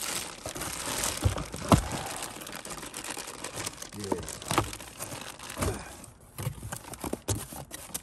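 Plastic wrapping crinkling and cardboard rustling as hands dig through a box of packaged brake parts, with a few light knocks.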